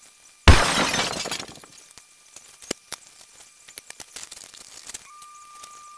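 A sudden loud crash-like noise about half a second in, fading over about a second. It is followed by faint scratching and ticking from a brush spreading polyurethane over a concrete countertop.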